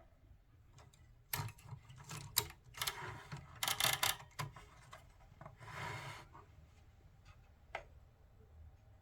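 1938 Remington Bantam typewriter being handled: scattered clicks and knocks of its metal parts with several scraping, rubbing sounds in the middle, and one sharp click near the end.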